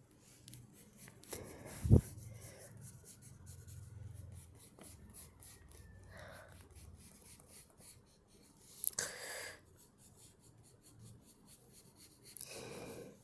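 Drawing strokes scratching on paper, many short strokes in a row, with one loud knock about two seconds in. A heavy breath comes about nine seconds in and another near the end.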